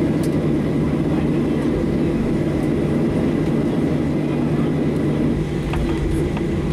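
Boeing 737-700's CFM56-7B jet engines running at taxi idle, heard inside the cabin as a steady drone with a low hum.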